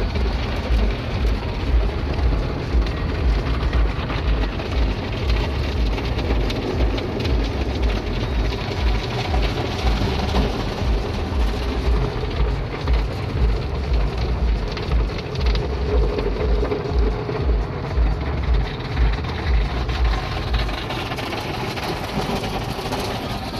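Automatic car wash heard from inside the car: rotating brushes slapping against the body in a steady rhythm of about two thumps a second, over spraying water. The thumping fades near the end, leaving the steady spray.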